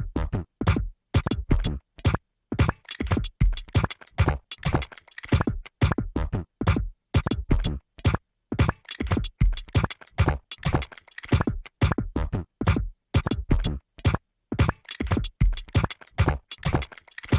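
Experimental electronic music: a stuttering chain of short chopped sound fragments, each with a low thump, about two or three a second with brief dead gaps between them. The chain stops abruptly near the end.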